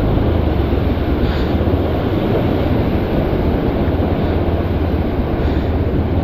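Motorcycle engine running as it rides over a rough stony track, mixed with the steady roar of a fast-flowing mountain river alongside.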